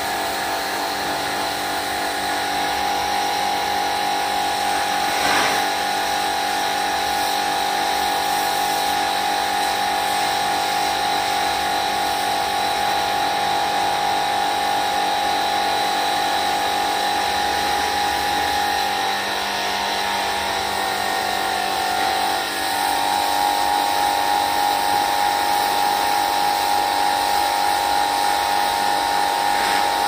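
Portable high-pressure washer running steadily, its pump motor giving a steady whine under the hiss of water jetting from the spray gun into a ceiling cassette air conditioner during evaporator cleaning. The whine wavers and dips briefly about two-thirds of the way through.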